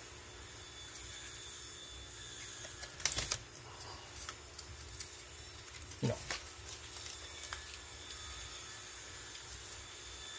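Hands handling and pulling apart the cylindrical cells of a battery pack: faint clicks, taps and rustles of cells and their cardboard insulation, with a brief cluster of sharper clicks about three seconds in.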